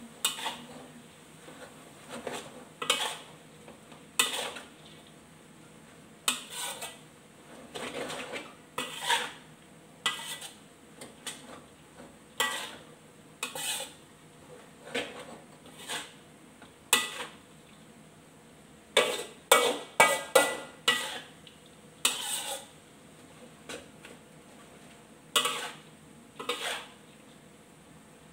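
A metal ladle and spatula scrape and clank against a wok as noodles are stir-fried. The strokes come irregularly, about one a second, with a quick flurry of louder strokes about two-thirds of the way through.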